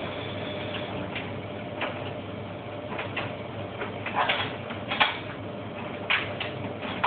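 Bosch WFF 1200 washing machine running a hot wash: a steady hum from the turning drum, with irregular clunks from the laundry tumbling inside it.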